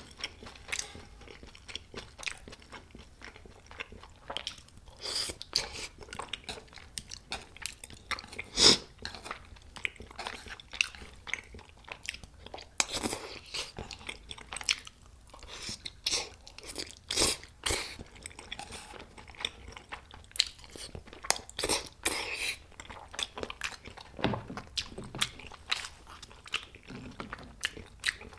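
Close-miked eating: a person biting and chewing food, with scattered sharp clicks of metal chopsticks and a spoon against a bowl; the loudest click comes a little under halfway through.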